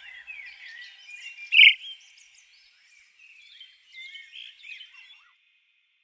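Small birds chirping and twittering in many short, quick calls, with one louder call about a second and a half in. The chirping cuts off about five seconds in.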